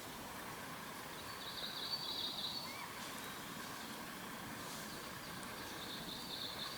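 Wild Japanese macaques calling: two drawn-out, high, rough calls, one about a second in and another near the end, against faint outdoor background noise.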